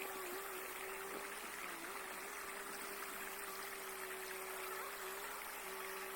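Steady hiss of outdoor background noise with a faint, steady, slightly wavering hum.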